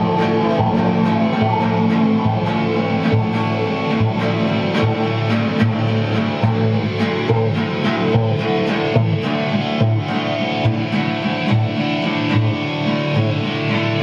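Guitars playing an instrumental passage, with sharp picked or strummed attacks in a steady pulse of about three a second.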